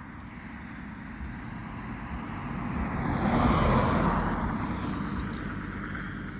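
A car driving past on the road, its noise swelling to a peak a little past halfway through and then fading away.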